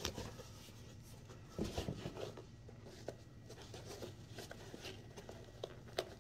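Hands handling an Air Jordan 1 Low sneaker, tugging and rubbing its laces and tongue: soft scattered rustles and small clicks, with a louder cluster about a second and a half in and a sharp tick near the end.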